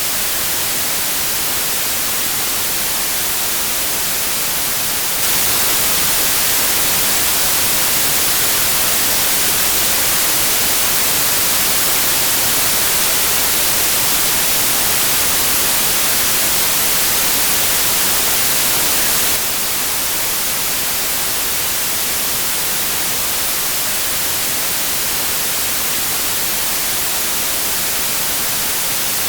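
Steady white noise, an even hiss strongest in the high end. It steps up a little louder about five seconds in and drops back about nineteen seconds in.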